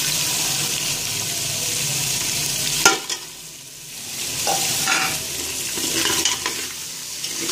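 Chicken pieces sizzling steadily in hot oil in a steel pot, with freshly added powdered spices. A sharp click about three seconds in, after which the sizzle goes quieter for a second before returning, with a few more short clicks.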